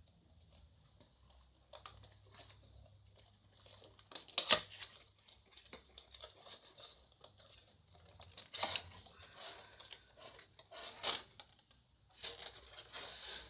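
Retail product packaging being opened by hand: cardboard and plastic rustling and crinkling, with scattered sharp clicks and two louder snaps, one about four and a half seconds in and one about eleven seconds in.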